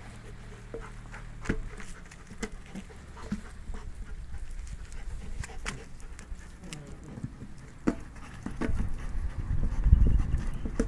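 Dogs nosing and mouthing an old car tyre, with scattered clicks and scuffs of teeth and paws on the rubber and ground. A low rumble builds near the end and is the loudest part.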